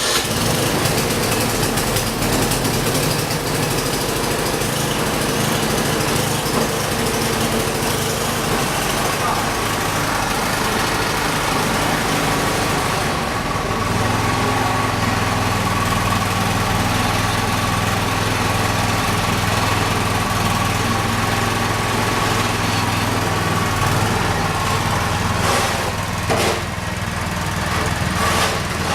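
Small gas snowblower engine running steadily, its note shifting a little about halfway through.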